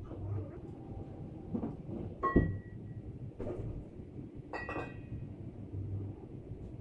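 Metal gas cylinders clanking: two sharp clanks with a short ringing note, about two and a half seconds in and again near five seconds, over a low rumble.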